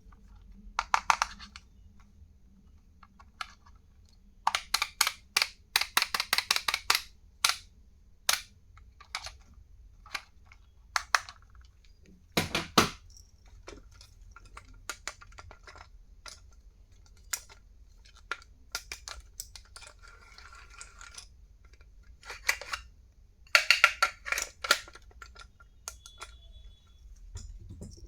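Small plastic stationery items and packaging being handled: clusters of sharp clicks and taps, one heavier knock about halfway through, and a short stretch of rustling a little later.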